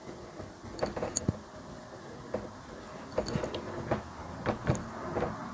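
Dry-erase marker on a whiteboard: short, irregular strokes and taps as axes are drawn, a few of them with a thin high squeak.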